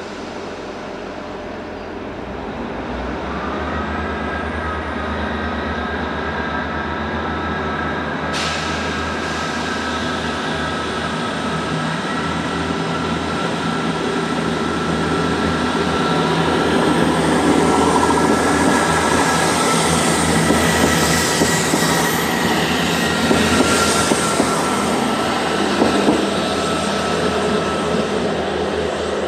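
Class 159 diesel multiple unit running on the rails: its underfloor diesel engines work under a steady high-pitched whine, over rumbling wheel and track noise. The sound grows louder towards the middle.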